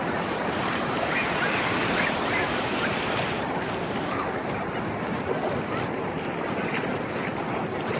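Ocean surf washing over the shallows, a steady rushing, with wind on the microphone.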